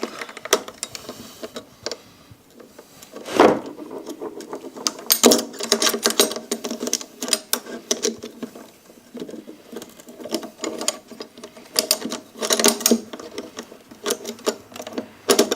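Metal clicks, clinks and rattles of a garbage disposal's sink-flange mounting parts being worked by hand, as the snap ring is forced up onto the flange, with a couple of louder knocks about three and a half and five seconds in.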